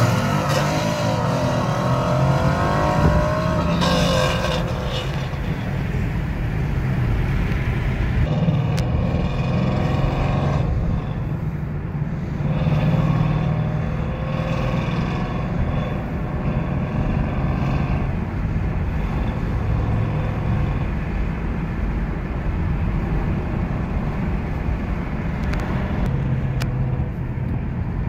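Ford Mustang Coyote 5.0 V8 and a Dodge Challenger pulling away from a stoplight, heard from inside a following car's cabin. Their engine notes rise over the first few seconds and again about ten seconds in, then settle into a steady low rumble mixed with road noise.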